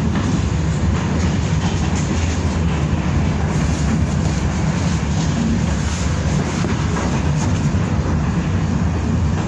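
BKM-62103 tram running at speed, heard from inside the passenger cabin: a steady low rumble of wheels and running gear on the rails, with faint scattered clicks.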